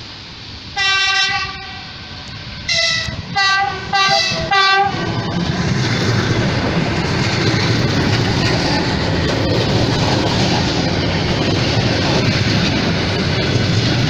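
ЭП2Д (EP2D) electric train sounding its horn: one longer blast about a second in, then four short toots. From about five seconds in, the cars pass close by, with the steady noise of wheels rolling over the rails.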